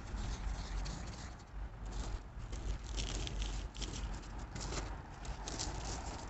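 Hand crumbling and squeezing chunks of dyed baking soda that is not fully dry, giving irregular soft crunches and gritty rustling, with the crunchiest squeezes about three and five seconds in.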